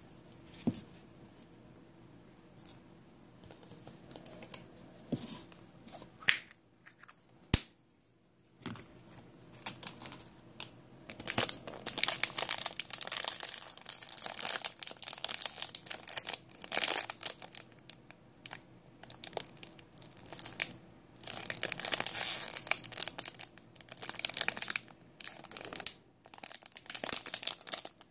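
Plastic foil blind-bag packets crinkling as they are handled and turned over in the hands. A few scattered taps and clicks come first, then from about eleven seconds in the crinkling comes thick and fast in repeated bursts.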